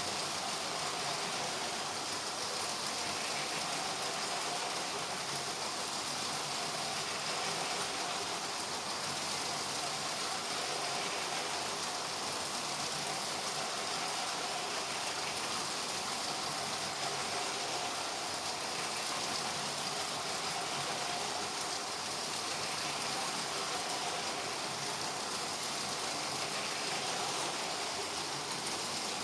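LEGO trains running on a plastic track loop: a steady whirring of the electric train motors and a rolling rattle of the wheels, swelling gently every few seconds.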